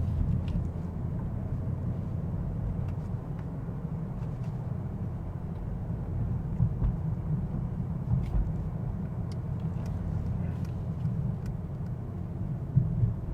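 Steady low rumble of a Mercedes-AMG S63 heard from inside the cabin while driving at city speed: engine and tyre noise.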